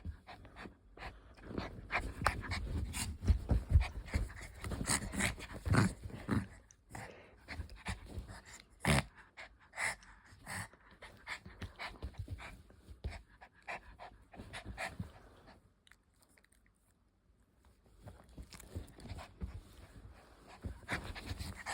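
Puppy panting while playing, with scattered short knocks and rustles, and a couple of seconds of near quiet about three-quarters of the way through before the sounds resume.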